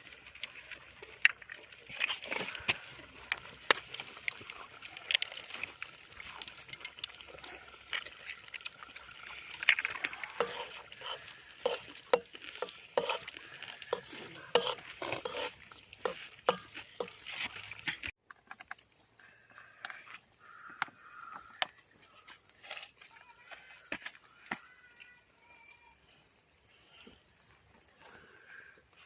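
Scattered short clicks and knocks over a faint outdoor background, busier in the first two-thirds and sparser and quieter after an abrupt change about 18 seconds in.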